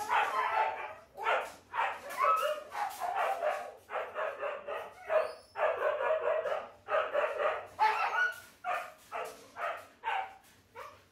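Huskies barking and yipping, short barks coming about two a second without let-up.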